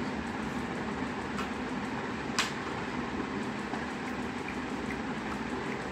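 Steady room hum and hiss with a single sharp click about two and a half seconds in.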